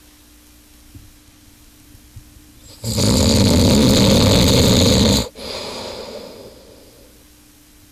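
A sleeping man snoring loudly: after a few seconds of quiet, one long, loud snore lasting about two and a half seconds that cuts off sharply, followed by a softer breath that fades away.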